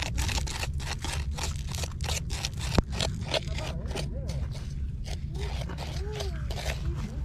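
Bare hands digging and raking through coarse, shell-gritty sand in search of buried shellfish: a quick, uneven run of gritty scrapes and crunches, with one sharp click a little under three seconds in. A steady low rumble runs underneath.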